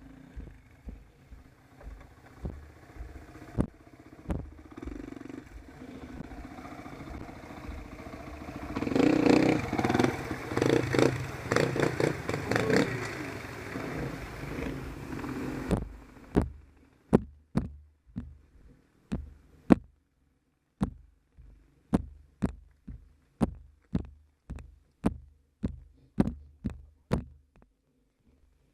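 Off-road motorcycle engines running with clatter, louder in the middle of the first half. After a sudden cut, a steady train of dull thumps about twice a second takes over.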